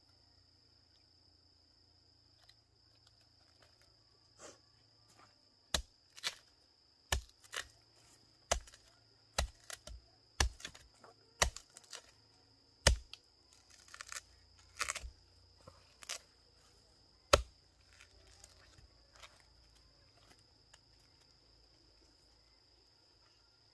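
A machete chopping into a rotten, fibrous palm stump: a series of sharp chops at an irregular pace, about one a second, starting a few seconds in and stopping a few seconds after the middle. A steady high insect buzz runs behind them throughout.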